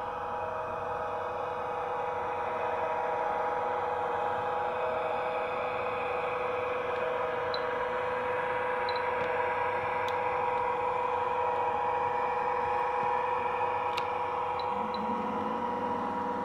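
OO gauge model trains running on the layout: a steady mechanical drone with a constant hum, and a few faint clicks scattered through it.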